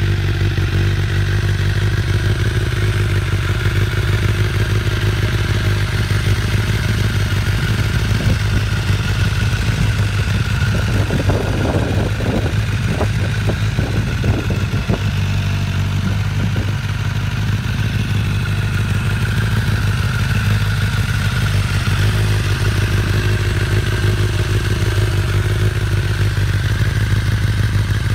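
An engine running steadily at a constant speed, with a stretch of irregular clattering knocks about halfway through.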